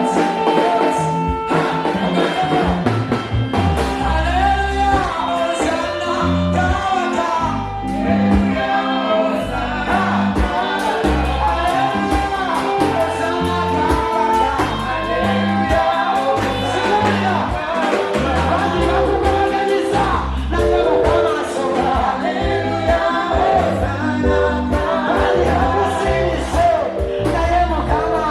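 Gospel worship music: singing over a band with a steady bass beat.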